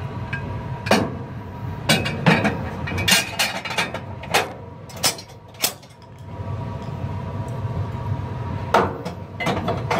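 Metal burn pot components of a biomass furnace clinking and knocking against the steel housing as they are handled and seated by hand: a dozen or so sharp metallic knocks, with a steady low hum underneath.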